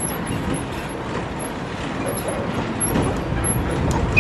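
Open-sided passenger tram running along a road, heard from on board: steady engine and road rumble.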